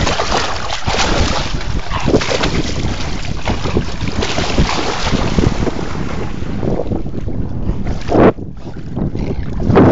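Wind buffeting a phone's microphone over splashing river water, rough and uneven, with a sudden loud gust or splash about eight seconds in.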